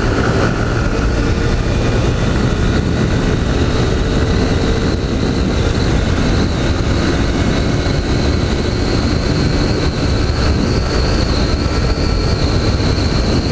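Honda CG 160 Fan's single-cylinder four-stroke engine running steadily under way, mixed with wind rushing over a helmet-mounted camera microphone.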